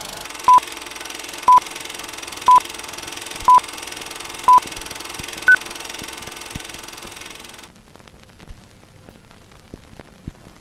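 Film-leader countdown beeps: five short identical tones a second apart, then a sixth higher-pitched beep. They sit over a steady hiss that cuts off about three quarters of the way through, leaving only a few faint clicks.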